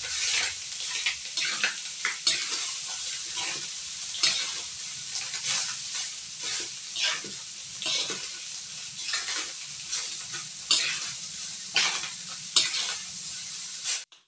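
Spatula scraping and turning rice in a wok, about one stroke a second, over a steady frying sizzle. The sound cuts off suddenly near the end.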